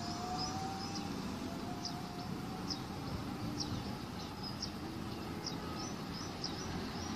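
Small birds chirping, short high chirps repeating every half second to a second, over steady open-air background noise.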